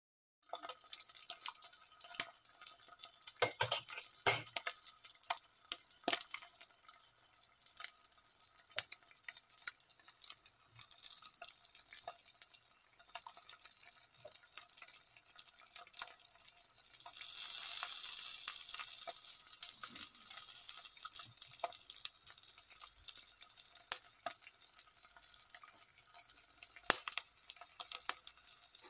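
Eggs frying in hot oil in a pan: a steady high sizzle with scattered crackles and pops, a few loud sharp ones about four seconds in. The sizzle swells louder for a few seconds a little past the middle.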